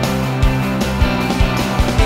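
Background music with a steady beat, thumping regularly about every half second under sustained pitched notes.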